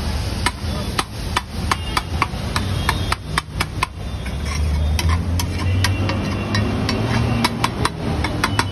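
Metal spatula knocking and scraping on a large flat iron tawa as potato patties are broken up in simmering ragda. The clinks come fast and irregular over a low steady rumble.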